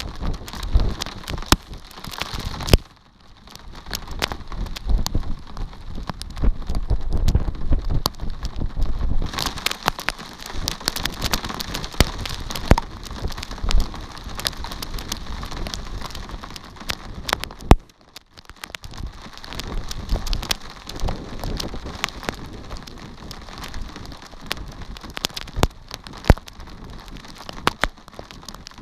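Rain falling, with many individual drops ticking sharply on a surface close to the microphone. It briefly eases about three seconds in and again around eighteen seconds in.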